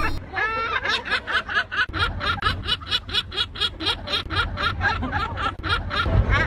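A bird giving a fast, laugh-like chattering series of calls, about five a second, after a longer opening call.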